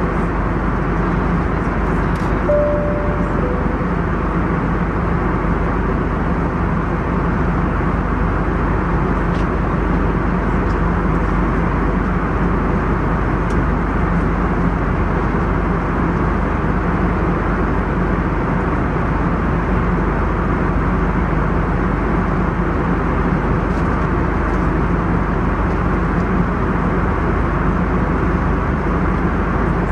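Steady cabin noise of an Airbus A321neo in cruise: a constant rush of airflow over the fuselage with the low drone of its geared turbofan engines. A two-note cabin chime, high then lower, sounds once about three seconds in.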